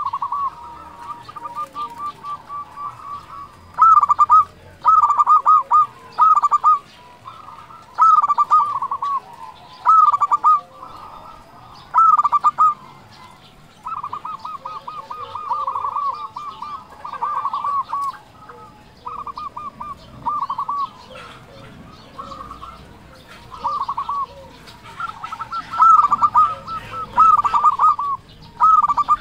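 Zebra dove (perkutut) singing: repeated phrases of rapid, staccato cooing notes at a steady pitch, coming every second or two, some phrases drawn out longer than others.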